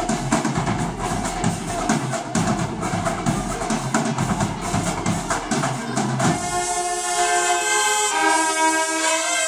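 School band playing: the drum section pounds out a fast beat on snare and bass drums, then about six seconds in the brass section comes in with held notes.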